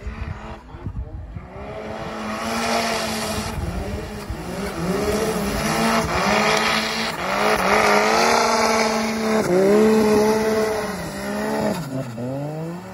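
Snowmobile engine revving hard, its pitch climbing and falling again and again as the rider works the throttle in deep snow, with a drop in pitch near the end.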